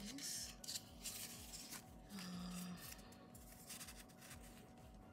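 Paper sticker sheets rustling and rubbing as they are handled and shuffled, loudest in the first second and a half, then a few faint taps and scrapes.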